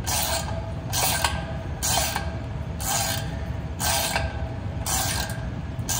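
14 mm ratcheting combination wrench turning the nut down on a 3/8-inch concrete wedge anchor bolt, giving a short burst of ratchet clicks on each return swing, about once a second.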